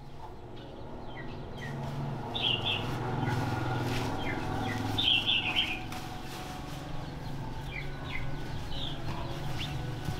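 Birds chirping in short clusters of high chirps, a few times, over a low steady hum.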